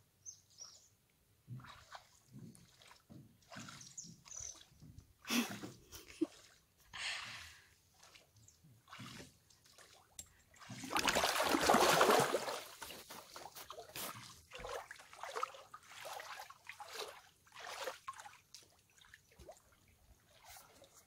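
Oars dipping and splashing as a small rowboat is rowed, irregular splashes with water sloshing against the hull. A longer, louder rush of noise comes about halfway through.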